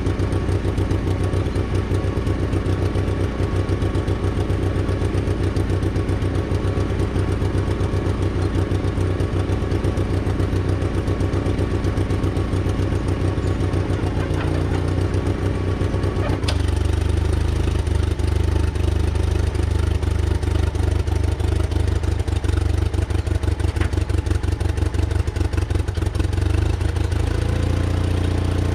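Case 1816C skid steer's gas engine running steadily. Its note changes abruptly with a click a little past halfway, and shifts again near the end.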